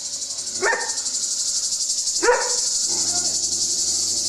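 Cicadas buzzing in a steady, high, finely pulsing chorus, with a dog barking twice, about a second and two seconds in.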